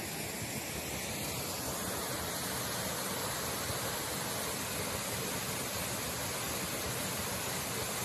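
Steady rush of a mountain waterfall pouring down a rock face. About a second and a half in, it grows fuller and a little louder.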